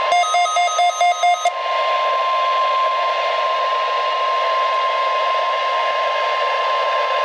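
NOAA Weather Radio 1050 Hz warning alert tone of the weekly test: one steady, loud high tone held throughout, heard through a radio receiver with a constant hiss beneath it. A quick run of short electronic beeps sounds over it for the first second and a half.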